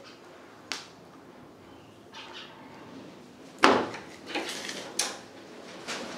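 Steel kitchen vessels being handled: a few separate knocks and scrapes, the loudest a little past halfway with a short ring.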